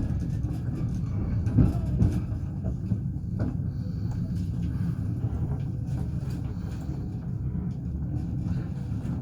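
Passenger train 148 Kyiv–Odesa rolling along the rails: a steady low rumble with a couple of sharp wheel knocks over the rail joints.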